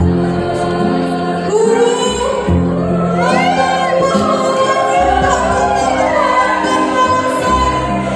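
Backing music with a repeating low accompaniment, joined about a second and a half in by a girls' choir singing.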